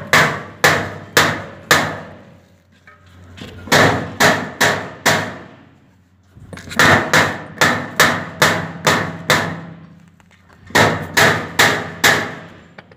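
Hammer striking a galvanized sheet-metal duct hood along its seam. The blows come in four runs of four to eight quick strikes, about two a second, with short pauses between runs. Each strike rings briefly.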